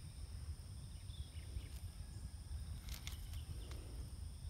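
Outdoor pondside ambience: low wind noise buffeting the microphone under a steady high insect drone, with a couple of faint bird chirps and a brief cluster of clicks about three seconds in.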